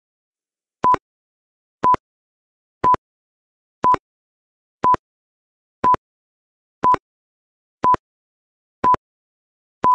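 Countdown timer sound effect: short, identical electronic beeps, one each second, about ten in a row, ticking off the seconds left to answer.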